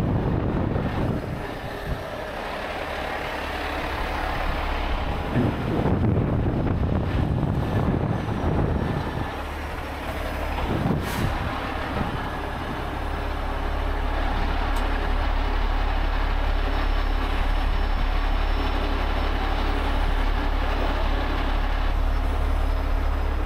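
Heavy diesel truck engine running steadily, with one short sharp knock about eleven seconds in.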